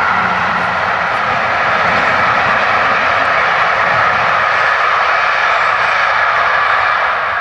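Steam-hauled express train behind Peppercorn A1 Pacific 60163 Tornado passing at speed: a loud, steady rush of wheels and coaches on the rails.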